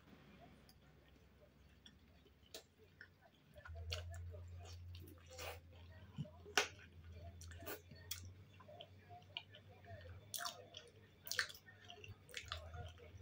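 Close-up eating sounds of boiled dumplings (pelmeni and vareniki) with butter: soft wet chewing and lip smacks, with scattered sharp clicks from the mouth and the fork on the plate. A low hum sounds in the background from about four seconds in, fades around eight seconds and comes back near the end.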